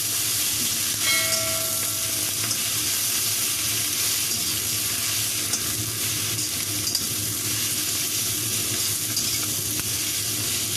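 Blanched Chinese kale sizzling in hot oil in a wok or pan as it is stir-fried, a steady hiss, with a brief squeaky tone about a second in.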